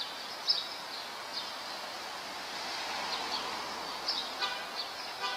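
Small birds chirping in short, high, falling notes, over a steady hiss of outdoor street noise.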